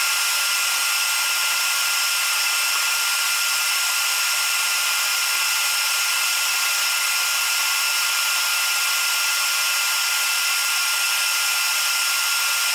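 Wet/dry shop vac running steadily on suction, a rushing of air with a thin steady whine, pulling lint back out of a dryer vent line through its hose.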